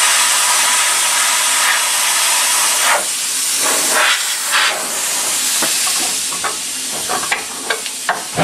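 Plasma cutter hissing steadily as it cuts steel, stopping about three seconds in. Scattered clicks and taps and a few short bursts of hiss follow.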